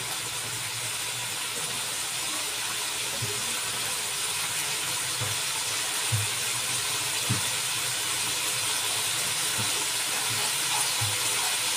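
Onion, garlic and oyster sauce sizzling steadily in a wok, with a soft pop now and then, as the sauce cooks down until it sticks to the pan.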